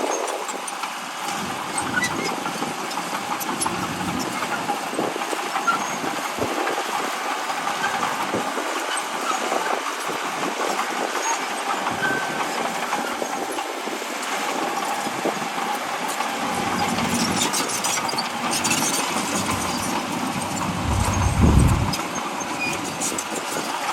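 Bulldozer working: its diesel engine running steadily under a rattling, clanking clatter of the tracks, with a brief low surge of engine sound about 21 seconds in.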